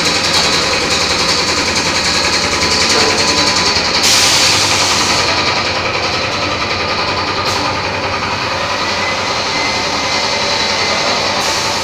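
Thermocol plate-making machine running with a loud, fast, even mechanical rattle, with a burst of hiss about four seconds in and shorter ones later.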